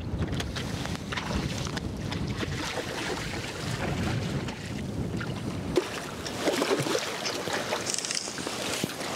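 Hooked rainbow trout splashing at the water's surface as it is played on a fly rod, with wind rumbling on the microphone for about the first six seconds. Near the end, a short burst of splashing as the fish is scooped into a landing net.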